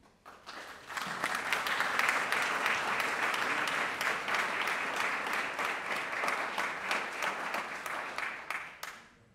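Audience applauding. The clapping builds up in the first second, holds steady, and dies away about nine seconds in.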